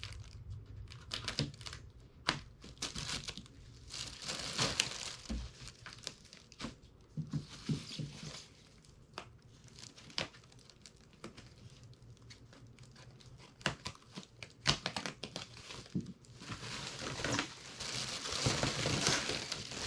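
Packaging crinkling and rustling as a new dehumidifier is unwrapped, with scattered sharp clicks and knocks; it gets busier and louder in the last few seconds.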